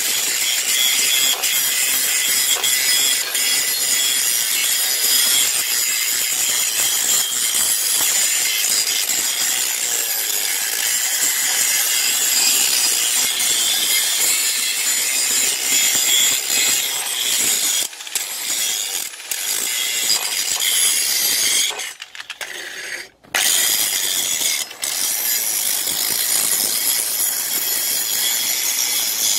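DCA angle grinder running with its disc ground against the steel of an old rusty axe head: a loud, steady, hissing grind over the motor's whine. There are a few brief breaks, the longest about a second, some 22 seconds in.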